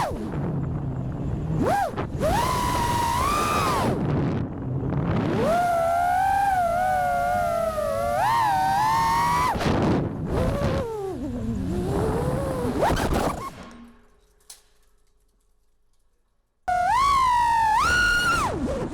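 FPV quadcopter's brushless motors (Vulcan Innovation motors) whining with propellers spinning, the pitch rising and falling constantly with throttle through freestyle flying. About 14 seconds in the whine drops away to near silence, then comes back suddenly near the end.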